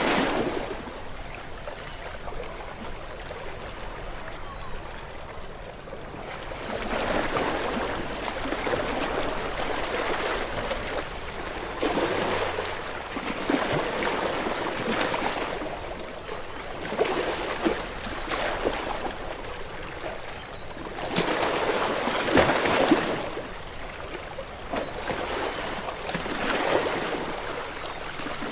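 Ocean waves breaking on a rocky shore, a rushing wash of water that swells and falls back in irregular surges every few seconds, the strongest about three quarters of the way through.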